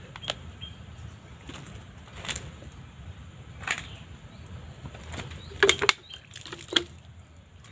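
Scattered handling noises: short knocks and rustles of gear being moved, with a cluster of sharper clicks late on as a plastic water bottle is picked up and handled.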